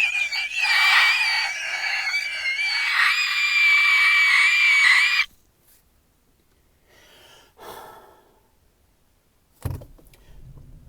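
A man's high-pitched, sustained falsetto screech, held on one wavering note for about five seconds and then cut off abruptly.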